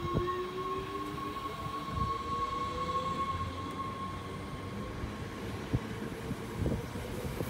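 NS Sprinter Light Train electric multiple unit pulling away from the platform: a traction motor whine rises steadily in pitch over the first few seconds, then levels off, over the low rumble of the carriages rolling past. A higher steady tone fades out about halfway through.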